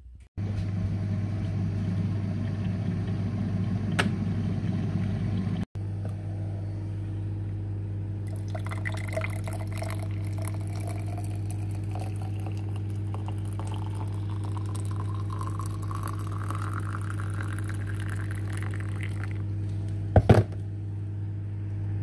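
Hot water poured from a kettle into a ceramic mug. The pitch of the pour rises steadily as the mug fills, over a steady low hum. A brief loud clatter comes near the end.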